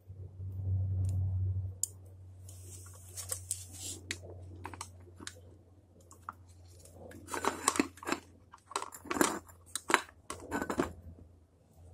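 Bonsai scissors snipping, with a run of quick, sharp cuts in the second half. A low hum sounds in the first two seconds.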